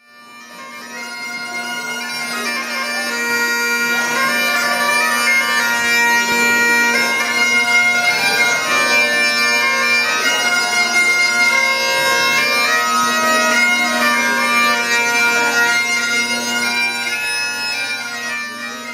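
Bagpipes playing a Celtic tune over a steady drone, fading in over the first few seconds.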